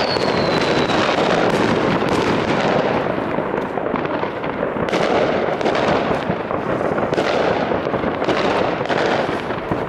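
Many New Year's fireworks going off around the town: a dense, continuous barrage of bangs and crackling, with a thin falling whistle at the very start.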